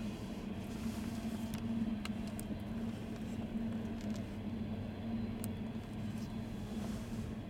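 Freight train of loaded ethanol tank cars rolling past: a steady rumble of wheels on rail with a constant low hum and a few sharp clicks.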